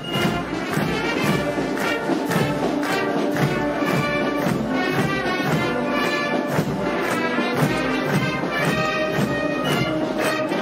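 Military brass band playing a march, with a steady beat.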